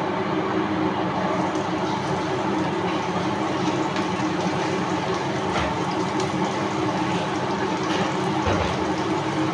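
Steady hiss and hum of a kitchen range hood's extractor fan running over the stove, with a few faint clicks.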